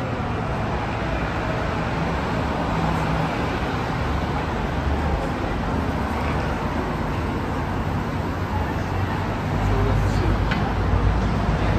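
Busy crowd ambience: many voices blending into a steady hubbub, with a low rumble growing louder near the end.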